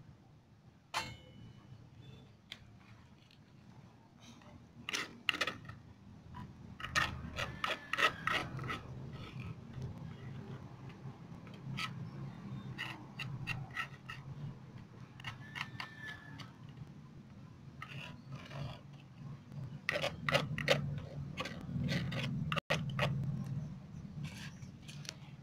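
A plastic spatula scrapes and taps in irregular strokes against a clay plate and a small nonstick frying pan as chopped shallots and garlic are pushed into the pan. The sharpest clicks cluster about seven to nine seconds in and again about twenty to twenty-one seconds in.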